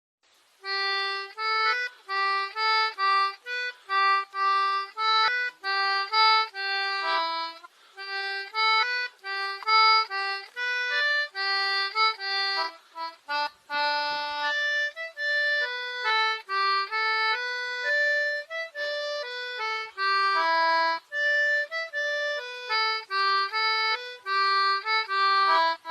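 An accordion playing a lively melody of quick, separate notes.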